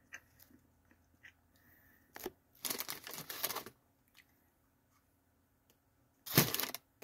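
Close rustling and crackling as a cookie is handled and bitten right by the microphone: a rustling burst lasting about a second a few seconds in, and a shorter, heavier one with a thump near the end.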